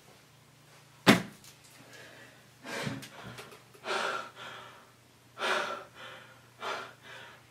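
A sharp knock about a second in, then a man gasping for breath in a string of loud, ragged gasps a second or so apart.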